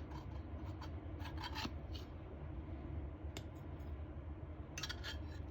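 Light scrapes and clicks of a cooking utensil as cooked food is moved onto a platter, a few in the first two seconds, one a little past the middle and a short cluster near the end, over a steady low hum.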